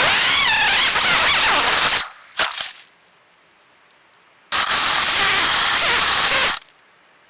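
FPV quadcopter's brushless motors and propellers whining loud and hissy, the pitch sweeping up and down with the throttle, in two bursts of about two seconds each with a brief blip between them.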